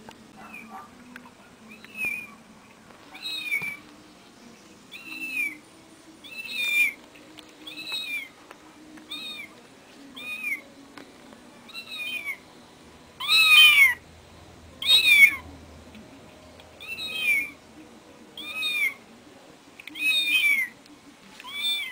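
Cat meowing over and over: short, high meows repeating at an even pace, about one every second and a half, some fifteen in all, the two near the middle loudest.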